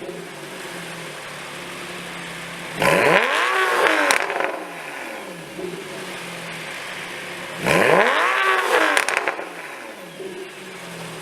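Porsche 991 Carrera's naturally aspirated flat-six, breathing through an IPE F1 Edition Valvetronic exhaust, idling with two quick free revs about five seconds apart. Each rev climbs sharply in pitch and falls back to idle.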